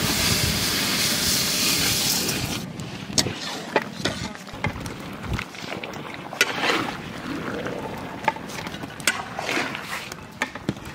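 Sugar poured in a stream into a large pot of liquid: a steady hissing rush for about two and a half seconds that cuts off sharply. After it, scattered clacks and scrapes of a metal spatula against a steel karahi as meat is stirred.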